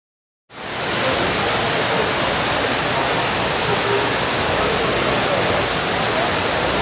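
Steady rushing outdoor noise that cuts in suddenly about half a second in and holds at an even level.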